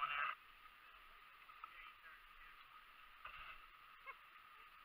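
A voice trails off at the very start, then near quiet: a faint steady hiss with a few faint, short sounds.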